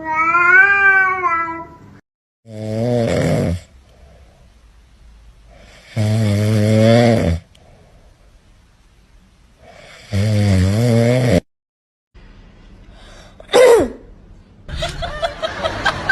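A drawn-out, wavering meow, then loud snoring: three snores about four seconds apart. A short sharp squeal and a noisy stretch follow near the end.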